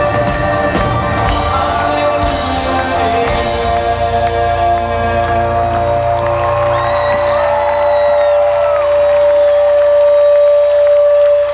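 Live rock band playing an instrumental break, drums and full band for the first few seconds, then the drums drop out about four seconds in and a single sustained keyboard note holds on, with a crowd cheering.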